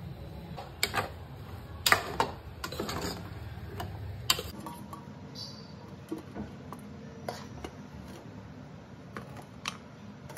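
Steel spoon clinking and scraping against a metal pan and a stainless steel plate as food is scooped out: a few sharp clinks in the first half, then lighter scattered taps.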